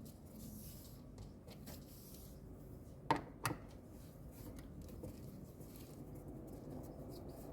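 Two sharp clicks about three seconds in, half a second apart, amid faint handling noise: tools and parts being handled while screws and the wiring harness are freed from a washing machine's tub.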